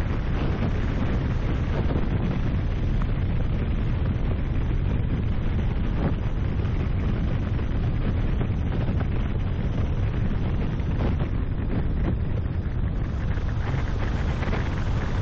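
A car driving along a paved road, heard through a microphone on its bonnet that is buffeted by wind: a steady, deep rumble of wind and road noise.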